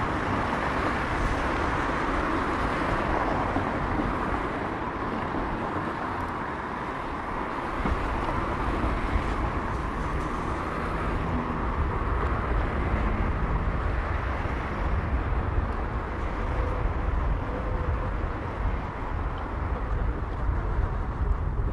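Steady city street ambience dominated by road traffic noise, with a deeper low rumble coming in about eight seconds in.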